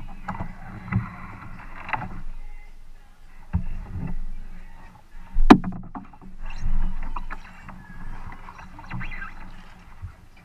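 A kayaker getting settled in a wooden kayak and pushing off with the paddle: knocks of body and paddle against the hull, water splashing and dripping off the paddle blade, with one sharp knock about five and a half seconds in as the loudest sound.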